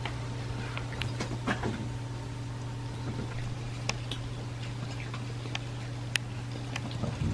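Several kittens eating together at a shared dish, making scattered small clicks and crunches over a steady low hum.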